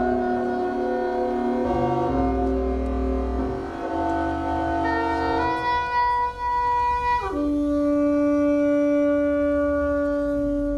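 Live saxophone playing long held notes, several tones overlapping at first; about seven seconds in the sound slides down to one low note that is held steadily.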